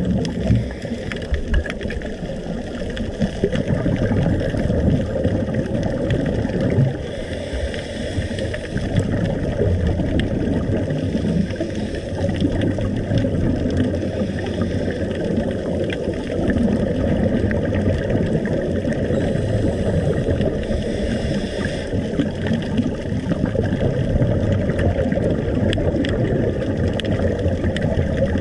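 Steady low underwater rumble and water noise, picked up by a camera in its dive housing.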